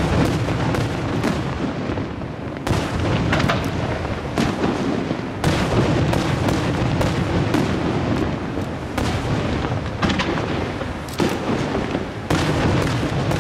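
Aerial firework shells bursting in rapid succession, overlapping bangs with no pause between them and a few sharper reports standing out every couple of seconds.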